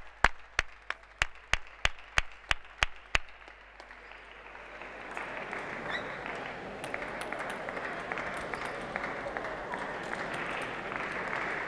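Sharp, evenly spaced taps about three a second for the first three seconds, then a crowd in a large arena applauding, building up and staying steady to the end.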